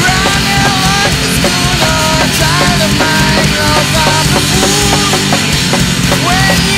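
Loud punk rock song playing steadily: a full band with drums and a bending melodic line riding over it.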